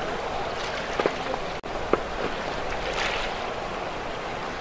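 Muddy floodwater of the swollen Mahakali River rushing along a stony bank: a steady rushing noise, with a few short knocks about a second in and again near two seconds.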